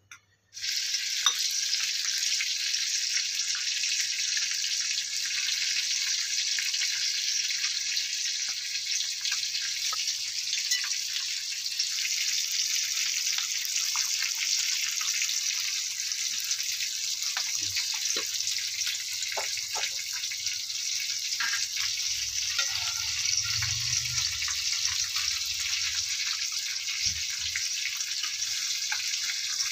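Steady high hiss, with a few faint clicks and a brief low rumble in the second half.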